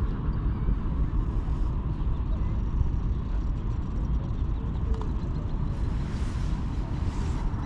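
Wind buffeting the microphone: a steady, uneven low rumble, with a brighter hiss for about a second and a half near the end.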